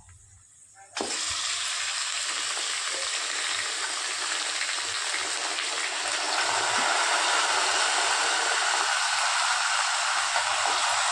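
Washed chicken pieces dropped into hot oil and browned onions in a steel kadai, setting off a loud, steady sizzle. It starts suddenly about a second in and grows a little louder around six seconds in as more pieces go in.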